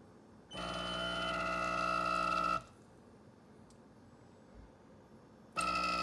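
Francis Francis Y1.1 espresso machine's pump running with a steady hum for about two seconds, stopping for about three seconds, then starting again near the end. The machine pauses the shot when the water is not hot enough, warms up, then pushes the rest through.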